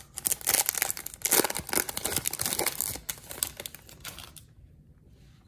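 Foil wrapper of a Topps Chrome baseball card pack being torn open and crinkled in the hands, a dense crackle that stops about four seconds in.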